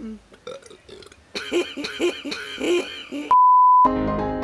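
A long, drawn-out belch after chugging carbonated soda, its pitch wavering in a regular rhythm, starting about a second and a half in. Near the end a loud, steady electronic beep cuts in for about half a second, and music with piano notes follows.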